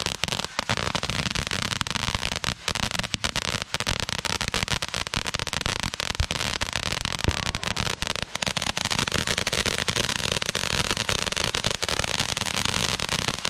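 Fireworks crackling: a dense, continuous run of rapid pops and crackles.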